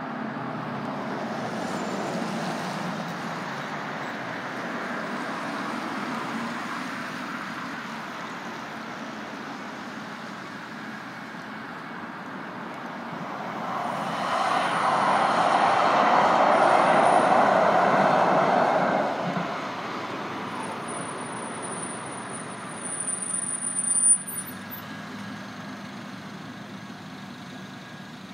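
Road traffic hissing past on a wet road at a light-rail crossing. A TriMet MAX light-rail train passes close by in the middle of the stretch, the loudest part for about five seconds, with a thin high whine heard in short spells during and after the pass. Near the end there is a brief sharp sound.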